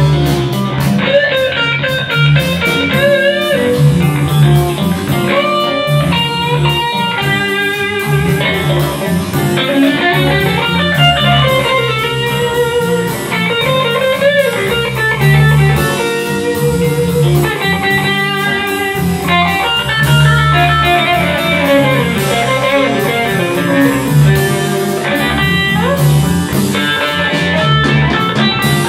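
Live blues band playing an instrumental passage: electric guitar lead lines with quick runs and bent notes over bass guitar and drums.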